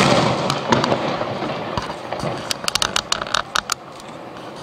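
Aerial fireworks shells bursting. A loud boom at the start rumbles and echoes away, then a quick run of sharp crackling pops comes about two and a half to four seconds in.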